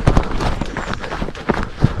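Footsteps of a hiker on a trail: a run of irregular crunching steps, with a couple of heavier footfalls about one and a half seconds in and near the end.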